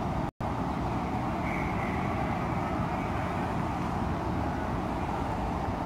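Steady outdoor city ambience: an even low rumble with no distinct events, cutting out for an instant about a third of a second in.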